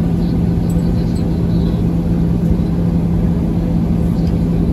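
Boeing 737-800 heard from inside the cabin while taxiing: its CFM56-7B engines running at idle, a steady low hum with a constant drone tone.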